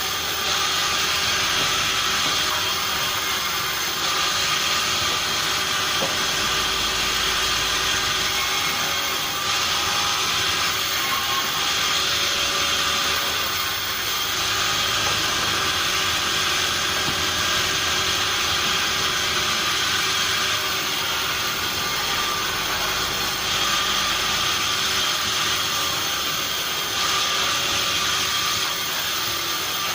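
Sawmill machinery running steadily: a constant noisy din with a steady whine in it, unchanging in level.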